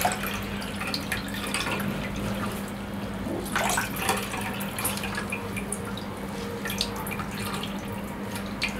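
Whey dripping and trickling into a bowl as a cotton cloth bundle of split-milk curds is wrung tight by hand, pressing out the water to form paneer. Irregular small splashes and wet cloth squelches over a steady low hum.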